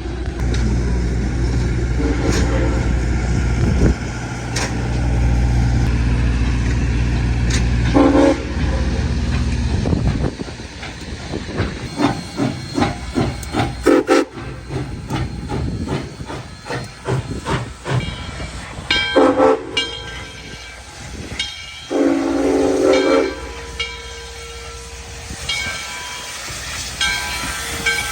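Southern Railway 630's Nathan six-chime steam whistle sounding several separate blasts, short and long, over the locomotive's rumble, steam hiss and a run of rapid sharp chuffs or clanks near the middle.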